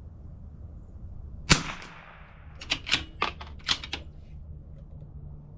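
A single shot from a CZ 457 bolt-action .22 LR rifle firing RWS Rifle Match subsonic ammunition: a sharp crack about a second and a half in, with a short tail. About a second later comes a quick run of about six metallic clicks as the bolt is worked.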